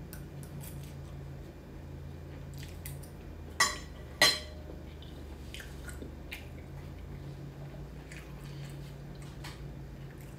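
Cutlery on a ceramic plate while eating: small clicks and scrapes of a knife and fork, with two sharp ringing clinks about a second apart near the middle, and chewing. A steady low hum runs underneath.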